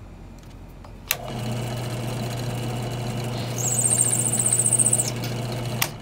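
Benchtop drill press switched on with a click, its motor running with a steady hum. About halfway through, a countersink bit cuts into the primer pocket of a brass rifle casing with a high, rapidly pulsing squeal for about a second and a half, chamfering away the military primer crimp. The press is then switched off with a click.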